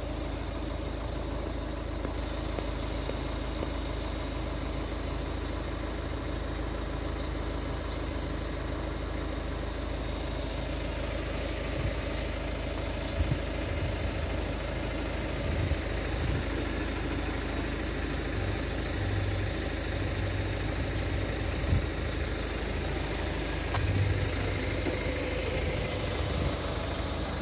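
Steady low rumble of car engines idling in the queue at the closed crossing barriers, with a few faint knocks along the way.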